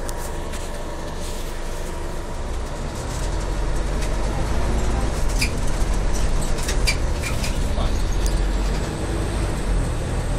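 Scania CN280UB city bus heard from inside the passenger cabin: steady diesel engine and road rumble, growing louder about three seconds in. Sharp clicks and rattles from the bus interior come in the middle.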